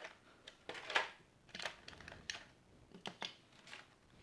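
Hands handling a Mega Bloks toy pack and its small plastic pieces: irregular light clicks and rustles, the loudest about a second in.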